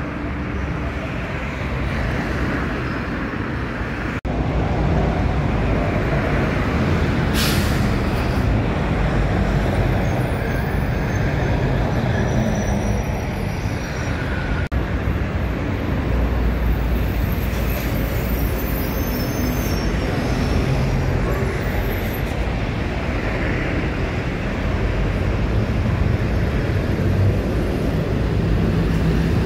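City buses running along a busy avenue, a steady engine rumble over traffic noise, with a short air-brake hiss about seven seconds in.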